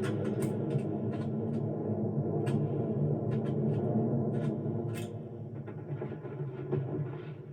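Animated-film sound effect of a grasshopper swarm's wings: a dense low drone with scattered sharp clicks and knocks. It dies away over the last two seconds.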